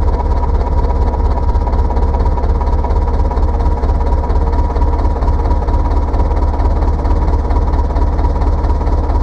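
Diesel engine of a tractor or backhoe running steadily at idle, a heavy low rumble with a fine even pulse and a thin steady high whine over it.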